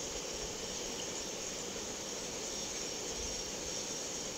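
Chicken pieces and sliced onions frying in butter in a pan, a steady sizzle.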